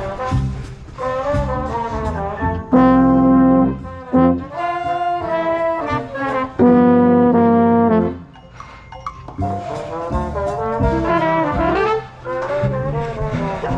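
Marching band brass playing a show passage, with a euphonium close to the microphone. Moving lines are broken by two loud held chords, about 3 seconds and about 7 seconds in, and there is a quieter stretch just after the second.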